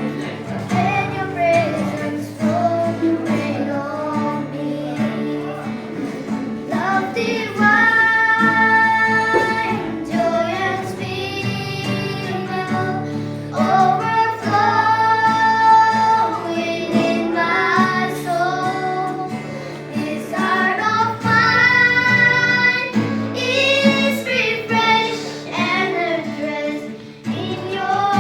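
Female voices singing a slow worship song over guitar accompaniment, with several long held notes.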